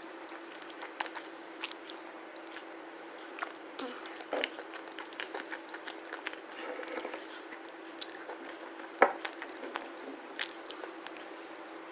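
Close-miked chewing of a black slate bar: a run of small crackling crunches, with a sharper, louder crunch about nine seconds in.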